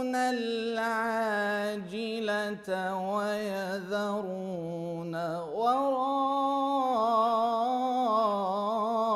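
A man's solo voice reciting the Quran in melodic tajweed style (murattal/mujawwad chanting). He holds long notes and ornaments them with melodic turns, with a short breath break partway through and a rising glide into the next phrase.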